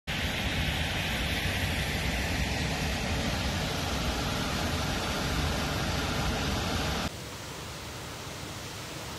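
Rushing water of the Manitou River's falls and rapids, a steady loud hiss with a deep rumble underneath. About seven seconds in it drops suddenly to a quieter, thinner rush.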